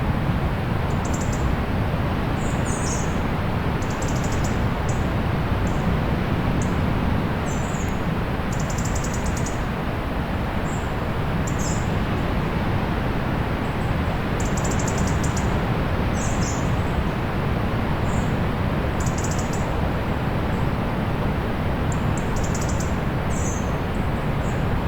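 Steady low rush of distant sea surf, with small birds chirping in short, high calls every second or two.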